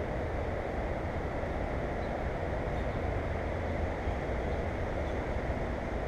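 Steady low outdoor background rumble with no distinct events.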